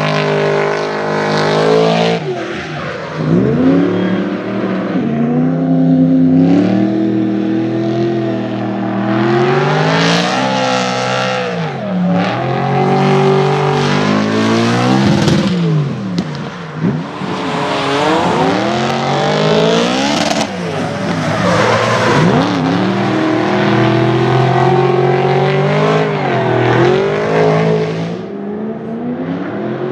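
Supercharged BMW M3 E92's V8 at full drift, revs repeatedly rising and falling as the car passes through the corners, with tyre squeal in places.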